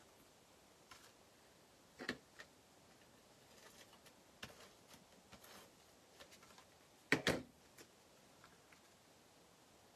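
Cardstock pieces being handled and set down on a craft mat: scattered soft taps and paper rustles, the loudest a quick clatter about seven seconds in and another about two seconds in.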